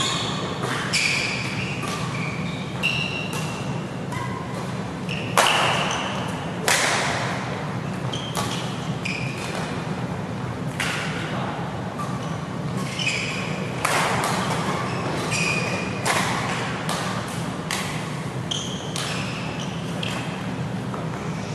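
Badminton rally: rackets striking the shuttlecock again and again in sharp knocks that echo in the hall, the loudest about five and a half and seven seconds in. Short high squeaks of court shoes on the mat come between the hits, over a steady low hum.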